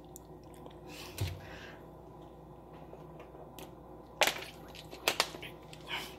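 Handling noises: a dull low thump about a second in, then a few sharp clicks and taps in the last two seconds as a plastic drink bottle is lifted, drunk from and lowered.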